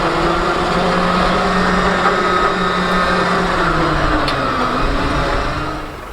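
Tractor engine running steadily; its note dips briefly about four and a half seconds in, and the sound falls away just before the end.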